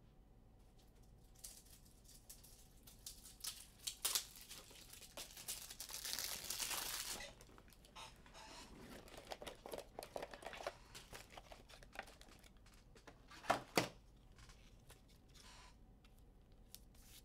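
A foil trading-card pack being torn open, with a rasping tear about five seconds in lasting a couple of seconds, amid the small clicks and rustles of cards being handled. Two sharper knocks come a little after the middle.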